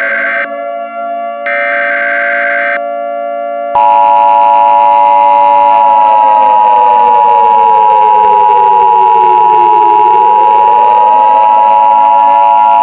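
Emergency Alert System tones: two short bursts of screechy SAME header data, then, about four seconds in, the loud, steady two-tone EAS attention signal. Under both runs a siren that holds its pitch, slides down and then climbs back up.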